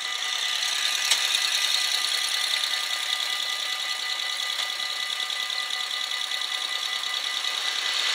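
Railroad crossing bells ringing steadily and rapidly as the crossing warns of an approaching train, joined by a motorcycle engine that comes closer over the first second and then idles at the lowered barrier.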